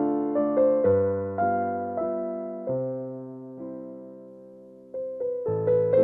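Background music: a slow piano melody of single struck notes and chords, each dying away. The notes thin out into one long fading chord in the middle, and new notes come in again about five seconds in.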